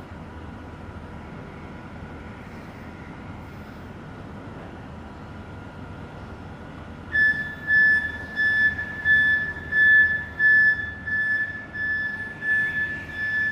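Low steady hum, then from about halfway through a Flexi articulated forklift's warning beeper sounds a single high-pitched tone about twice a second, much louder than the hum.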